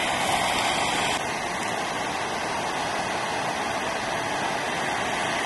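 Ocean surf: a steady rushing wash of breaking waves and whitewater, its upper hiss shifting slightly about a second in.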